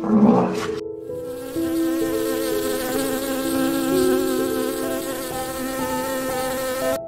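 An insect buzzing steadily for several seconds, cutting off near the end, after a short loud burst of sound in the first second.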